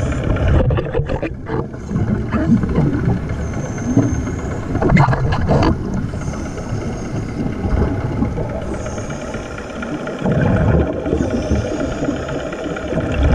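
Underwater sound of a steady motor drone carried through the water, with bursts of a hookah diver's exhaled air bubbles, the loudest about a second in and around five seconds in.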